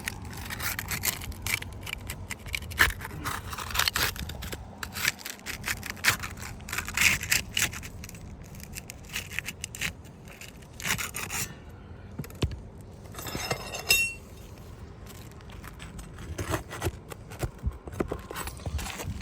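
Asphalt roof shingles being pried up to break their adhesive seal strips: a run of short, irregular scrapes and rubs.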